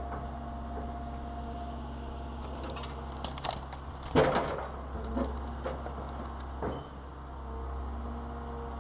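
Excavator engine running steadily while the building being demolished cracks and crunches, with the loudest crunch about four seconds in and a few smaller cracks after it.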